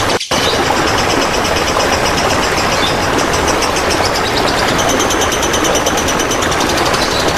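Steady rush of running, trickling water, cut off for a split second just after the start.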